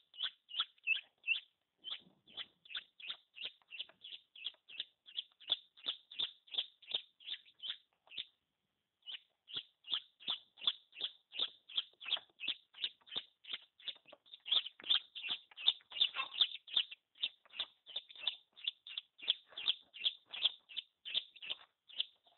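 Chicken chick peeping: short, high, shrill peeps repeated about three to four times a second, with a pause of about a second midway.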